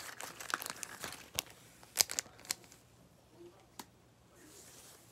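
A baseball card being slid into a thin plastic soft sleeve: plastic crinkling for the first second and a half, then a few sharp clicks, the loudest about two seconds in, before it goes quiet.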